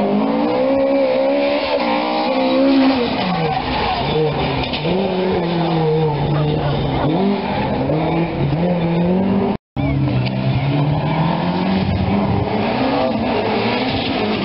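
Race car engines revving hard through the gears, the pitch climbing and dropping back at each shift: first a Ford Escort, then, after a brief break about ten seconds in, a Ford RS 200.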